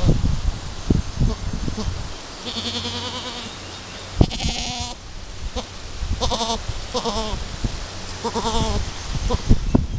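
Chamois-coloured Alpine goats bleating about five times, each call quavering and lasting under a second. There are low thumps and rustling near the start.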